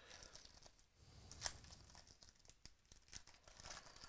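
Foil wrapper of a 2017 Panini Chronicles baseball card pack being torn open and crinkled by hand, faint crackling with one louder rip about a second and a half in.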